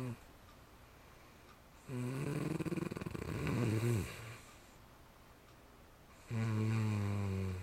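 A sleeper snoring, breathing without the nasal stent tube (Nastent) they use against sleep apnea. A rattling snore comes about two seconds in, and a steady, pitched snore starts about six seconds in, with quieter breathing gaps in between.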